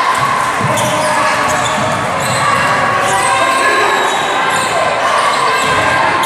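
A basketball game in a gymnasium: a ball bouncing on the court amid crowd chatter, with short high squeaks scattered through it.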